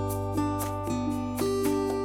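Background music: gentle acoustic guitar picking notes at an even pace over a sustained bass note.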